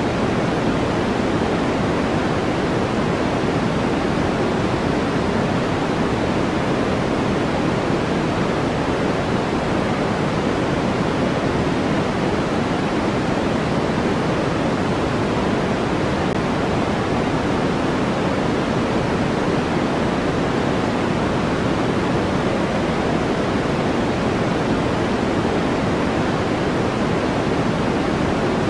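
Steady generated white noise for sleep and masking: an even, unchanging hiss that is fuller in the low-middle range than at the top.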